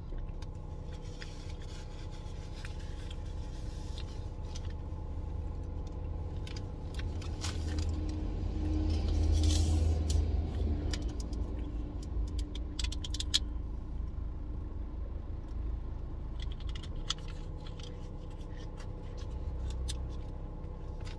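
Crinkling and clicking of a plastic drink bottle being handled and its cap twisted open, loudest around eight to eleven seconds in, over a steady low hum inside a car cabin.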